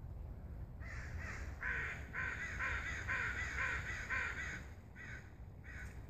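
Pileated woodpecker calling: a series of about eight repeated call notes at nearly two a second, followed by two more after a short break near the end.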